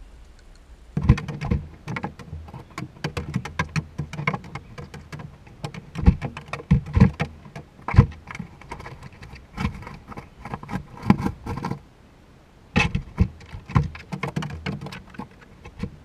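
A grey squirrel's claws scrabbling and tapping on a wooden feeder house close to the microphone: rapid, irregular clicks and scratches, with a short pause near the end.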